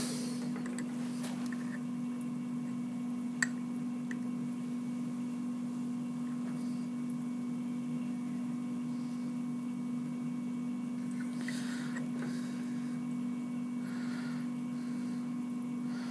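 Steady electric motor hum from a machine left running, with one light click about three and a half seconds in. Soft rustles of a micrometer being handled on the ground steel shaft come near the end.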